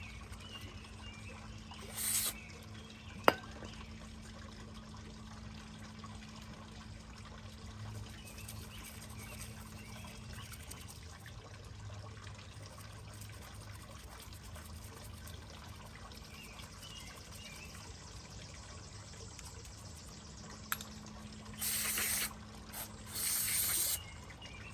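Short hissing sprays while small carburetor parts are cleaned: one about two seconds in and a cluster of three near the end, with liquid trickling off the parts. A single sharp click comes a little after the first spray, and a steady low hum runs underneath.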